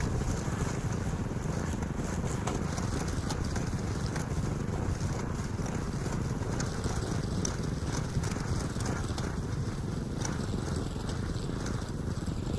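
Walk-behind gas string trimmer running steadily as it is pushed through thick, tall grass, mixed with wind rumble on the microphone.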